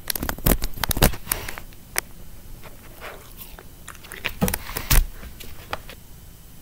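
A dog nosing at a computer's webcam: close knocks, clicks and rubbing right against the microphone, in a burst near the start and another around four to five seconds in.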